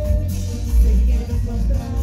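Amplified live band playing Latin American dance music, with a heavy low end, drums, keyboard and electric guitar, and a man singing into a microphone.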